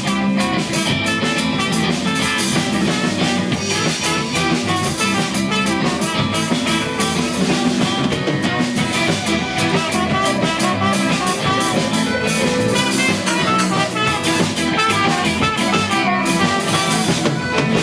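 Live rock band playing an instrumental passage: electric guitar over a steady drum kit beat.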